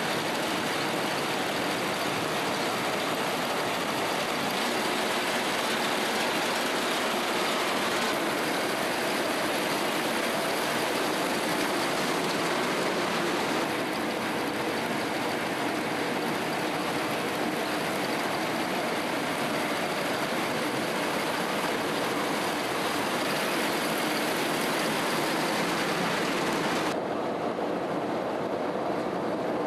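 Wuzheng wheat combine harvester running, a steady, dense mechanical noise; near the end the upper hiss drops away abruptly.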